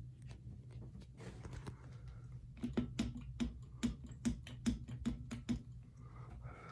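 Ceiling fan running with its motor housing off, giving a run of sharp ticks at about three a second over a low hum, from about two and a half seconds in. This is the intermittent tick being traced to a loose part inside the motor.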